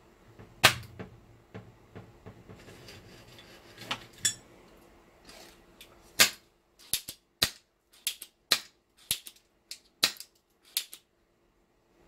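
Spring-loaded desoldering pump (solder sucker) snapping and clicking as it is cocked and fired. A loud snap comes about a second in, then a quick run of about ten sharp clicks near the end, roughly two a second.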